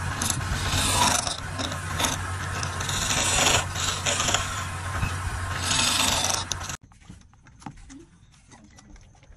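Wood lathe running with a steady low hum while a turning gouge scrapes and cuts the spinning rim of a wooden vase, the cutting noise swelling and easing in strokes. About seven seconds in it cuts off abruptly to a much quieter stretch with a few faint clicks and taps.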